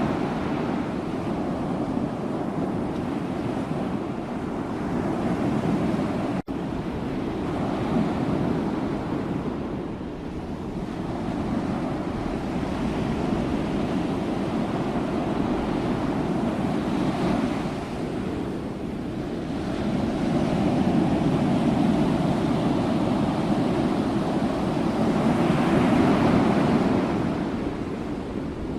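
Sea waves surging and washing in as a continuous rushing noise that swells and ebbs every several seconds, loudest in the last third. There is a momentary cut-out in the sound about six seconds in.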